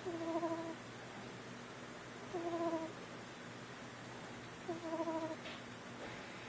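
A four-week-old kitten snoring: three short, pitched snores, each holding one steady note, a little over two seconds apart with its breathing.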